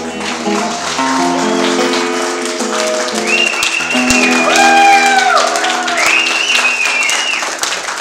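Audience clapping over the end of a song, whose music holds sustained chords that change every second or so. High held tones slide in and out from about three seconds in.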